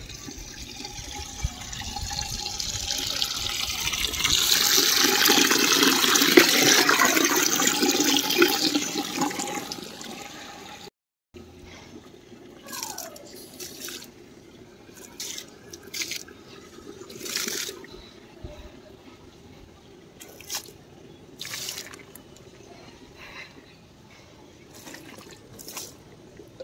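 Water running steadily into a metal mug as it fills, growing louder, then stopping abruptly about eleven seconds in. After that, several short pours of water from the mug splash onto the leaves and soil of potted plants.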